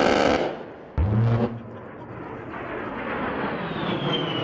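An A-10 Warthog's GAU-8 Avenger 30 mm Gatling gun on a strafing run, heard as two short, loud bursts about a second apart: a sharp crackle as the rounds hit the target, then the gun's own low BRRRT arriving. After that the jet noise of the A-10's twin TF34 turbofans rises, with a high whine that falls in pitch as the aircraft passes.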